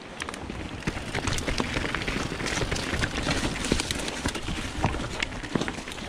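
Mountain bike riding down a rocky trail: the tyres crunch over rock and leaves while the bike clatters and rattles in quick, irregular knocks.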